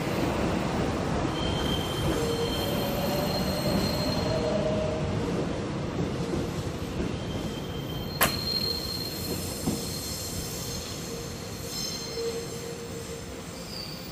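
Electric commuter train running past and away along the platform, its wheels squealing at times with thin high tones over the rumble, growing fainter as it leaves. A single sharp click about eight seconds in.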